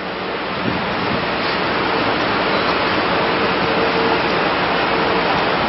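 Steady rushing noise of car traffic on a busy city street, swelling slightly over the first second, with a faint steady hum in the middle.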